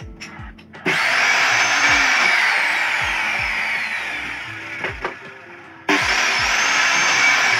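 Electric sliding miter saw started twice, about a second in and again near six seconds, cutting a wooden board. Each time the motor whines up to speed and its pitch then sinks slowly.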